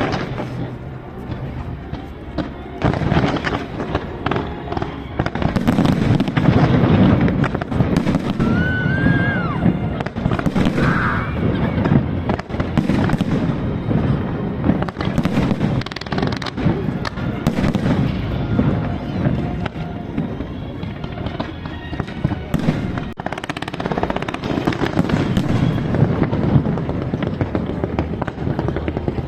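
Fireworks display: dense, continuous bangs and crackling from aerial shells bursting, with a brief whistle about nine seconds in.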